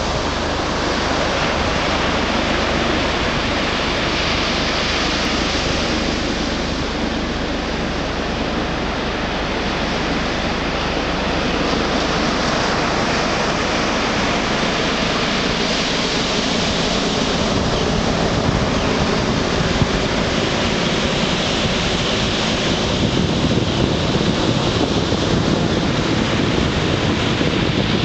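Atlantic surf breaking and washing up a sandy beach: a steady, loud roar of waves without pause.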